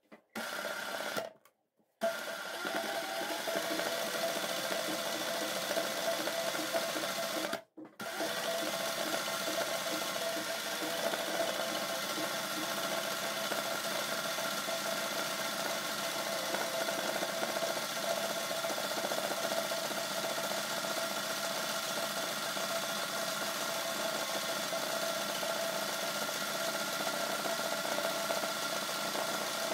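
Sewing machine running steadily as it stitches freehand satin-stitch embroidery into cloth. The sound drops out for a moment about a second in and again about eight seconds in.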